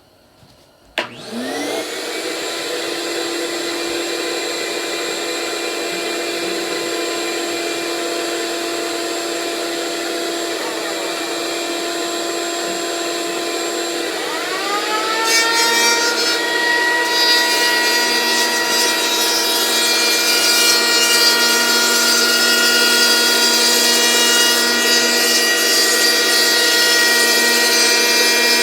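A handheld electric power tool switches on about a second in and spins up with a rising whine, then runs at a steady pitch. About halfway its pitch dips and recovers, and a louder, harsher hiss joins as it cuts into the surfboard blank's foam while the outline is shaped.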